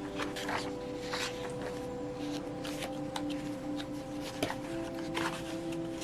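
Paper pages of a paperback Bible being turned, several short rustles, over soft background music with long held notes.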